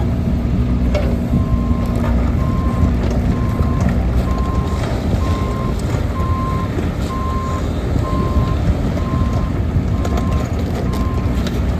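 Wacker Neuson EZ36 mini excavator's diesel engine running with a steady low rumble. From about a second and a half in, its travel alarm beeps about once a second, a sign that the machine is tracking.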